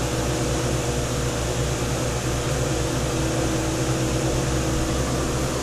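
Steady hum and hiss of aquarium equipment running, with a constant low drone underneath.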